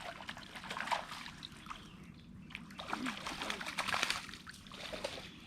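Water splashing and sloshing in short, irregular bursts, a hooked fish thrashing at the surface as it is reeled in. Faint voices come in briefly in the middle.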